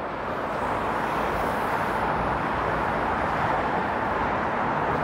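Steady city street traffic noise: the continuous rush of passing vehicles, growing a little louder just after the start and then holding even.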